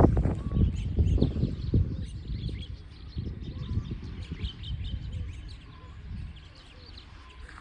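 Several small birds chirping and calling in quick short notes, over a low rumble that is strongest in the first couple of seconds and then dies down.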